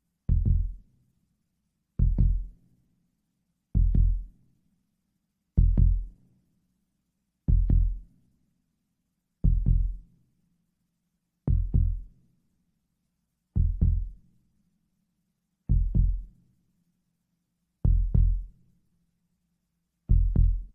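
Heartbeat sound effect: a deep thump about every two seconds, each dying away quickly over a faint low hum. The beats spread slightly further apart toward the end.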